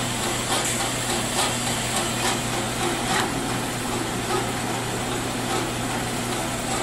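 Vectrax 7" x 12" horizontal band saw running without a cut, a steady motor hum with blade and gearbox noise and faint ticks a little under once a second.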